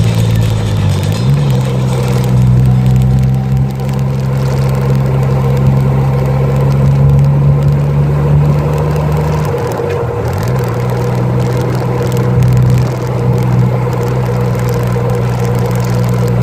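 Honda Gold Wing GL1500's flat-six engine running steadily above idle. Its pitch dips and recovers briefly about a second in and again around ten seconds in.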